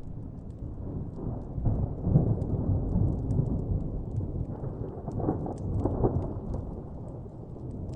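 Distant thunder rumbling low and long, swelling about two seconds in and again around five to six seconds, with faint crackles from a wood fire over it.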